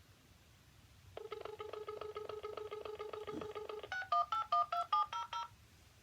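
Dial tone from a cordless home phone handset with a buzzy, rapidly pulsing hum for about three seconds. It is followed by a quick run of about eight keypad touch-tone beeps as a phone number is dialled.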